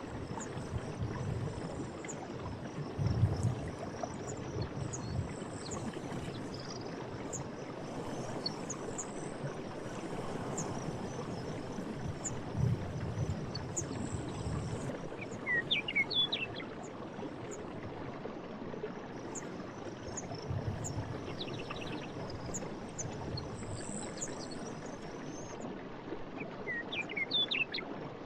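Forest night ambience: steady running water with uneven low splashes and lapping, insects chirping high and steadily, and a bird giving short chirps twice, about halfway through and near the end.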